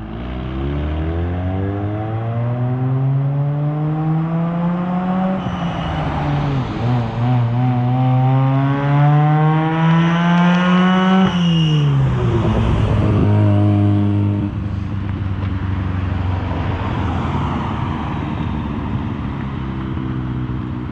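1983 Mazda RX-7's 12A two-rotor rotary engine accelerating hard on a flyby: the exhaust note climbs in pitch, dips at a gear change about five seconds in, climbs again to its loudest near eleven seconds, then falls sharply as the car goes past and settles to a lower steady note that fades away. The exhaust runs through a pre-silencer and is loud.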